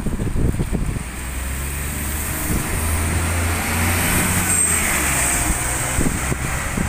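Alexander Dennis Enviro400 double-decker bus driving past close by and pulling away, its engine a steady low drone and its tyres hissing on the wet road, loudest about four to five seconds in as it passes. Wind buffets the microphone in the first second.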